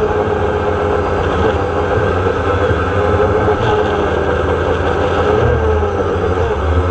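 DJI Phantom quadcopter's motors and propellers buzzing steadily, heard from the camera on board the drone, over a rumble of wind. The pitch wavers about five seconds in as the drone manoeuvres.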